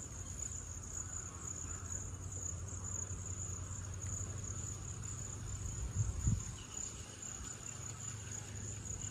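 Insects chirring outdoors: a steady, high-pitched trill that holds on without a break, over a low rumble, with a couple of soft knocks about six seconds in.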